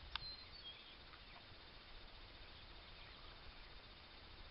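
Near silence: faint outdoor ambience with a few faint, short high chirps and a single sharp click just after the start.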